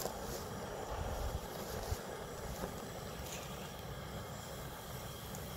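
Strong wind buffeting the microphone, with heavy low rumbling gusts in the first two seconds that ease into a steadier rush.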